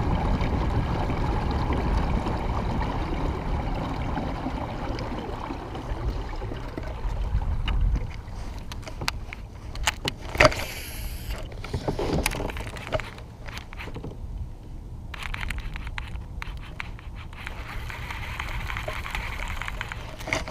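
Fishing kayak under way: a steady low rumble for about the first eight seconds, which then drops away. Scattered clicks and knocks of gear being handled aboard follow.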